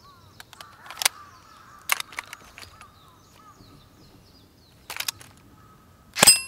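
Birds chirping in the background, with a few sharp clicks. Near the end an airsoft gun fires and its BB strikes a glockenspiel bar, which rings on.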